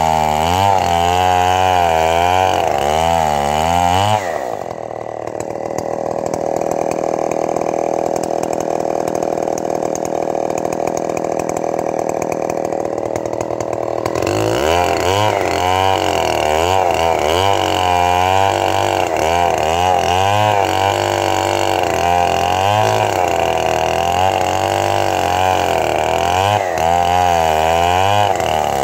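Stihl 070 two-stroke chainsaw cutting into a dead buri palm trunk, its engine pitch wavering up and down under load. There is a steadier stretch through the middle third.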